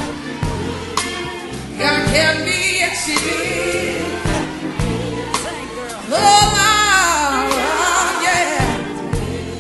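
Gospel music: a lead vocalist singing over a band with bass and drums, with choir voices behind. A loud, long wavering note starts about six seconds in.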